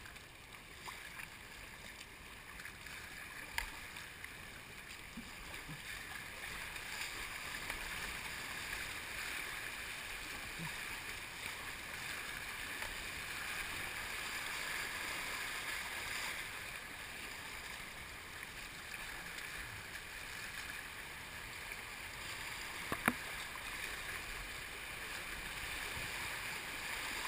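Shallow river rapids rushing around an inflatable kayak, the water noise growing steadily louder as the boat moves into whitewater. Two sharp knocks stand out, one a few seconds in and a louder one later on.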